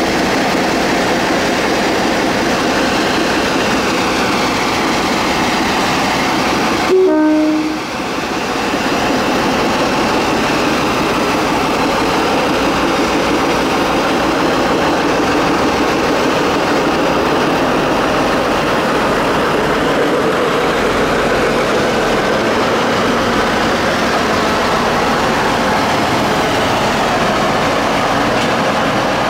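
Clayton Class 17 diesel locomotive D8568's twin Paxman six-cylinder engines running steadily under power as it hauls its coaches away. A short two-note horn, high then low, sounds about seven seconds in.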